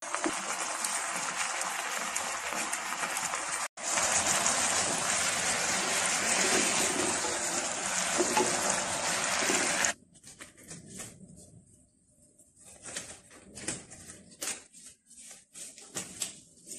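Water boiling hard under a whole chicken in a steaming pot, a dense steady hiss that breaks off briefly about four seconds in. About ten seconds in it gives way to scattered light knocks and scrapes of utensils.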